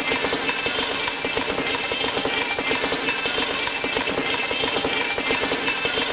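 Experimental electronic noise music: a loud, fast, machine-like rattling pulse that keeps going without a break, with thin high tones held over it.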